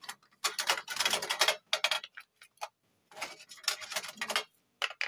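Quick plastic clicks and rattles of AA batteries being pushed into the spring contacts of a toy airliner's plastic battery compartment, in two bursts.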